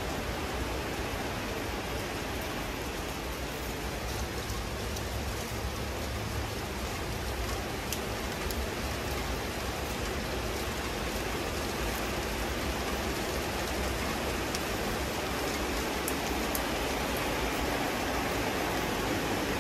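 Steady rain falling, a continuous hiss with a few sharp drip ticks now and then.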